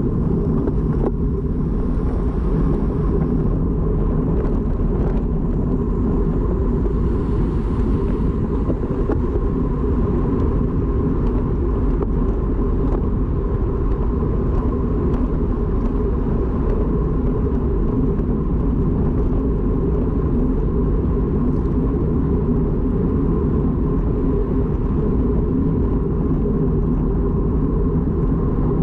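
Steady low rumble of wind and road noise on a moving camera's microphone, with a faint steady high tone running through it.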